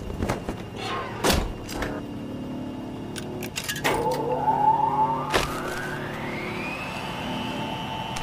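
Clicks and clunks of a coin-operated laundromat washing machine: its door and quarters dropping into the coin slot. Then a tone rises for about three seconds and holds steady, over a low droning score.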